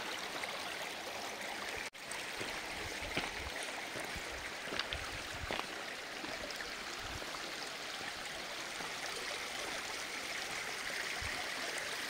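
Shallow mountain stream running over stones: a steady rush of water with a few faint clicks of footsteps on the pebbles. The sound cuts out for an instant about two seconds in.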